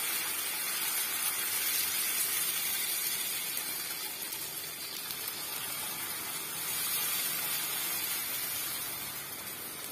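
Varai (barnyard millet) dosa batter sizzling with a steady hiss on a hot non-stick tawa as it is poured and spread in circles with a steel ladle.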